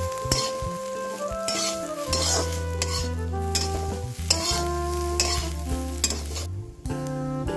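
Steel spatula repeatedly stirring and scraping dried putkal saag leaves, sliced garlic, onion and turmeric around a wok, with the sizzle of them frying in oil.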